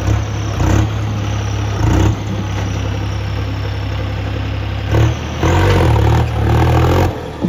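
Tractor diesel engine running steadily, then revving louder for about two seconds near the end.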